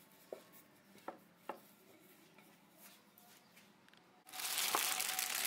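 Wooden rolling pin working brioche dough, with a few light knocks in the first second and a half. About four seconds in, a loud crinkling of plastic wrap starts suddenly.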